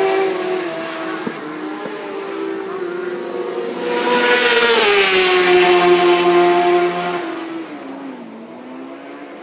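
Racing superbikes going past at speed: one engine fading away at first, then a second bike coming up loud about four seconds in, its engine note dropping as it goes by and falling off in steps as it slows before fading.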